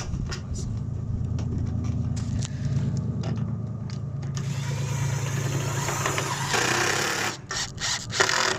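A steady low engine hum runs throughout. A rushing hiss rises over it for about three seconds in the middle.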